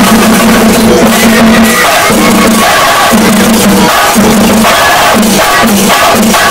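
A shinkari melam ensemble of chenda drums, beaten with curved sticks, and ilathalam hand cymbals, playing a loud, dense, driving rhythm in long rolls broken by short gaps.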